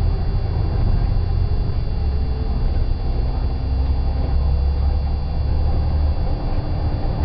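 Inside a moving vehicle: a steady low rumble of engine and road noise, with a faint engine hum that shifts slowly in pitch.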